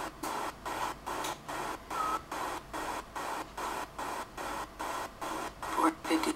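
Rhythmic hissing noise pulsing evenly about three times a second. A short voice-like sound comes near the end.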